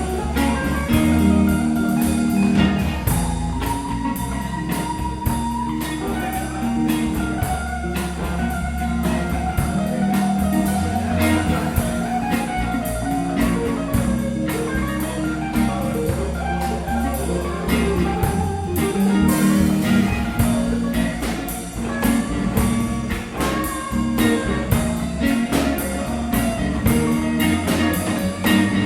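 A small band playing live: guitar and a low bass line over a drum kit keeping a steady beat.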